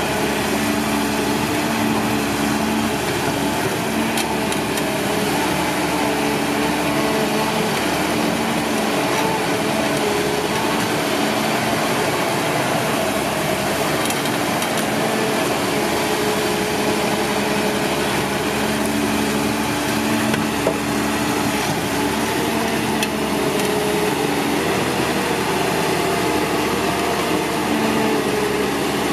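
Caterpillar 320D2 hydraulic excavator's diesel engine running steadily while working, its note fading and returning at intervals, with a few light knocks.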